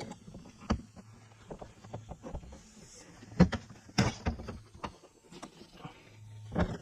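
Scattered sharp clicks and knocks, the loudest two a little past the middle, over a low steady hum that comes and goes.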